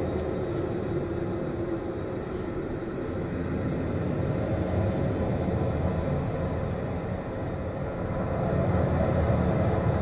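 Steady low rumbling drone of a dark ambient soundscape, growing a little louder near the end.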